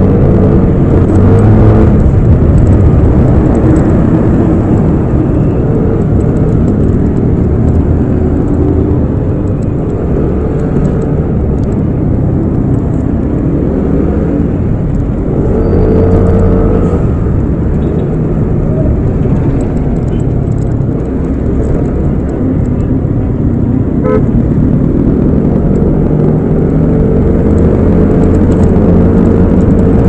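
Yamaha Aerox 155 scooter's single-cylinder engine running under the rider in traffic. Its pitch rises and falls with the throttle, with a swell of acceleration about halfway through.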